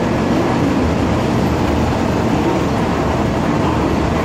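Shinkansen train rolling slowly along the station platform: a steady, even running noise.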